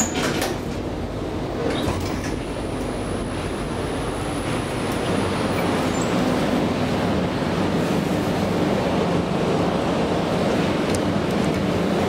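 1974 KONE inclined elevator car running along its incline: a steady rumble with a few clicks near the start and a thin high whine for a few seconds, getting a little louder in the second half.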